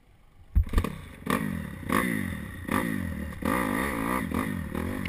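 Honda 250 motocross bike engine coming in abruptly with a couple of sharp knocks about half a second in, then revving up and down in repeated blips.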